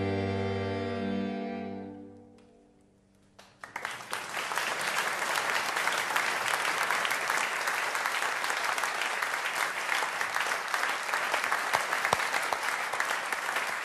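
A string quartet's final chord on violins, viola and cello, held and dying away. After about a second of quiet, audience applause starts and keeps on steadily.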